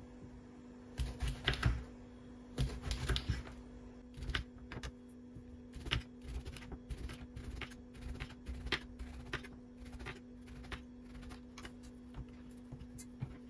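Kitchen knife slicing a peeled eggplant into rounds on a wooden cutting board, the blade knocking the board at each cut in a series of short sharp taps, about two a second.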